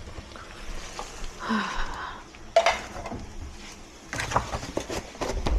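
Dishes and utensils being handled: scattered clinks and knocks, with a busier run of them over the last second and a half.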